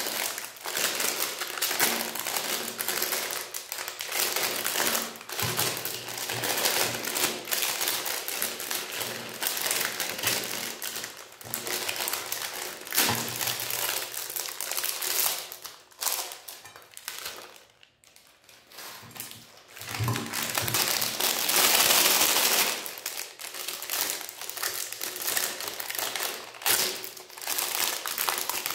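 Foil-lined ice cream bar wrappers crinkling and tearing as they are peeled open by hand, with a brief lull about two-thirds of the way through.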